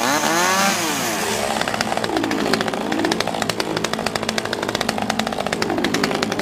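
Running chainsaws being juggled, the engine note swinging up and down in pitch every second or so over a steady buzzing crackle.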